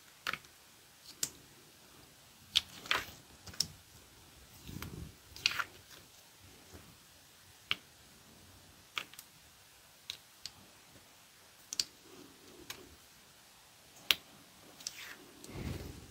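A weeding hook picking and peeling cut vinyl off its carrier sheet: about a dozen sharp little clicks and scratches at irregular intervals, with a soft rustle near the end.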